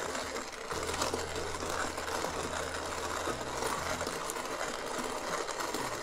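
Kalita hand coffee grinder being cranked steadily, its burrs crushing whole coffee beans in an even, continuous grinding.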